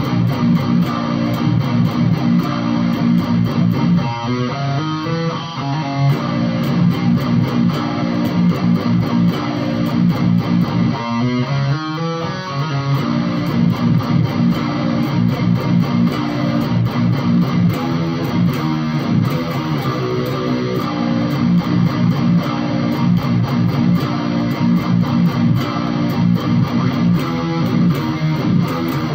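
Electric guitar played through an Acorn Amplifiers 'Another Fucking Klon Clone' overdrive pedal, giving a heavy, driven tone in continuous riffs. There are short breaks about five and eleven seconds in.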